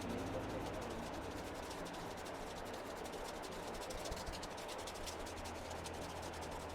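Steady rubbing of massage strokes on skin, with a faint low hum underneath.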